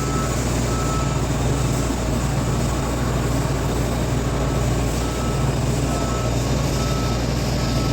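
Steady hiss and low hum of a TIG welding arc running on stainless steel pipe. A faint, short high beep repeats about once a second throughout.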